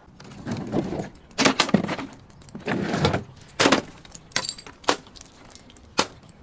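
Brittle things being crushed and broken: a run of irregular crunching breaks and sharp cracks, ending with a single sharp crack near the end.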